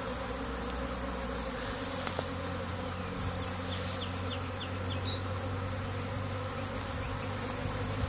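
Swarming honey bees buzzing: the steady, continuous drone of many bees flying around the cluster as the swarm settles.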